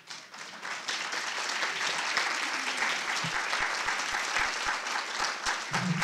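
Audience applauding, building up over the first second and then holding steady.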